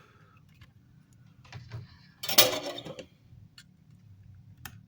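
Small tools and parts handled on a workbench during amplifier repair: a few faint ticks, then one loud, sharp clatter about two and a half seconds in.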